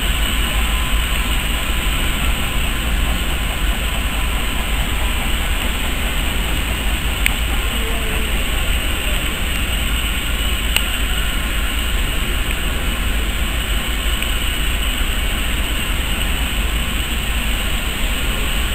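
Steam tank locomotive moving slowly along the track: a steady rumble and hiss, with a couple of faint clicks.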